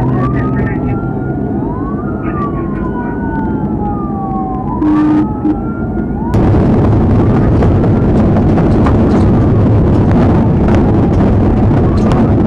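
Police car sirens wailing, two wails overlapping and rising and falling, over a cruiser's engine and road noise. About halfway through, this gives way suddenly to a loud, rough rumble as the cruiser drives across a plowed dirt field, with the siren faint beneath it.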